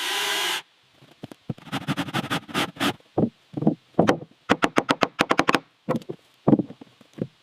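A short hissing burst, then a fast, irregular run of sharp knocks and thuds, some with a brief ringing tone.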